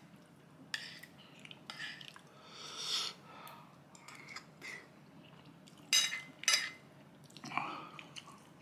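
A man chewing a mouthful of very spicy curry, with wet mouth clicks and smacks and a breathy rush of air about three seconds in. Two sharp clicks come around six seconds in.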